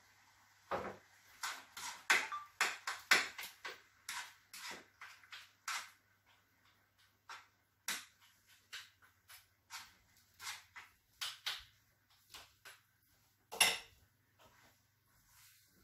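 A spoon clinking and scraping against a skillet of sauce in irregular sharp taps, thickest in the first few seconds, with a louder knock near the end.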